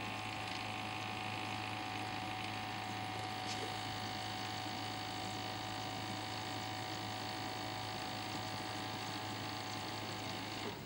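Keurig coffee maker's water pump running with a steady hum as it draws water from the reservoir into the boiler, the sign that the pump is working again now that the scale blocking it has been flushed out. It cuts off at the very end.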